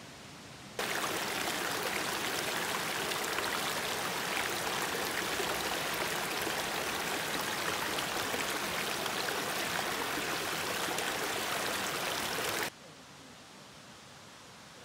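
Shallow river running over stones and small rapids: a steady rush of water that starts suddenly about a second in and cuts off sharply near the end.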